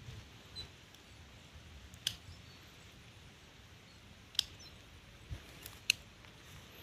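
A few sharp, faint clicks, a couple of seconds apart, over a quiet outdoor background: woody plant stems being cut or snapped while a mimosa plant is worked out of the undergrowth.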